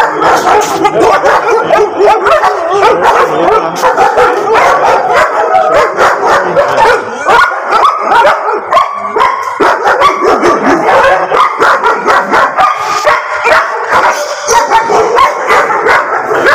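A kennel full of dogs, Labradors and English pointers among them, barking together, many voices overlapping in a continuous din.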